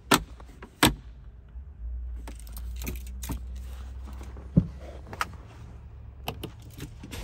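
Sharp clicks and light knocks of an SUV's centre-console trim and controls being handled, over a low steady hum that comes up about two seconds in. Near the end come two quick clicks as the engine start button is pressed.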